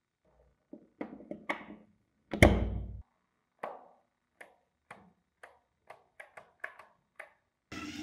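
Trigger of an old Black & Decker BD 561 electric drill clicking over and over, about two clicks a second, with no motor running: the drill is dead. Before the clicks comes a loud knock of the drill being handled, and near the end a steady hum starts.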